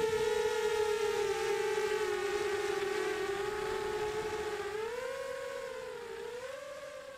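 FPV quadcopter's brushless motors and propellers whining, the pitch dipping and rising with the throttle, fading out near the end.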